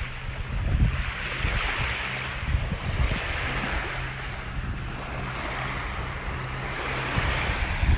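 Small waves breaking and washing up a sandy beach, the surf swelling and fading about every two seconds, with wind buffeting the microphone.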